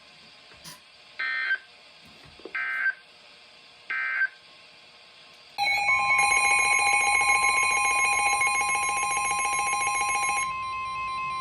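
Emergency Alert System end-of-message data bursts: three short digital squawks about a second and a half apart. About halfway through, a loud electronic alert tone starts, steady pitches over a fast pulsing buzz, for about five seconds, with one tone holding on alone for about a second after the rest stops.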